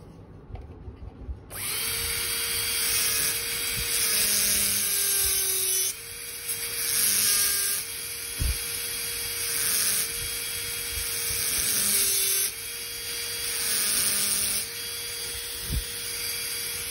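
Dental handpiece with a fissure bur running and cutting depth orientation grooves into a model lower first molar. A steady high hiss and whine starts about a second and a half in, and its pitch sags briefly a few times as the bur bites.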